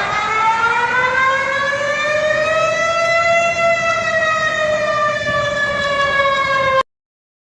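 Warning siren wailing with a pitch that climbs for about three seconds and then slowly sinks. It cuts off abruptly near the end.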